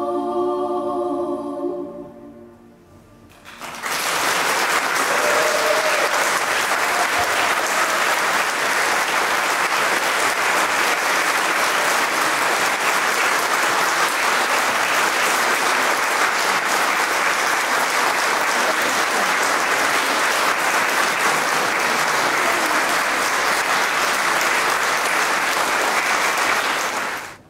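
A held chord of singing voices dies away. About a second later the audience starts applauding, a steady clapping that goes on for over twenty seconds and stops suddenly near the end.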